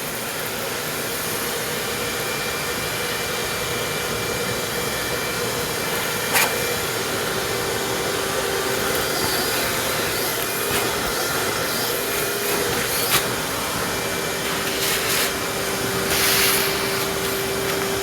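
Vacuum cleaner running steadily, drawing spilled gunpowder through a water-trap bucket. A few sharp clicks and brief hissing surges are heard as it picks up.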